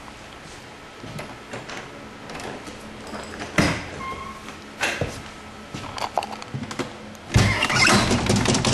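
Scattered knocks and clicks of handling and movement on a hardwood floor, then from about seven seconds in a loud, continuous metallic rattling as a hand grips and turns an old metal doorknob.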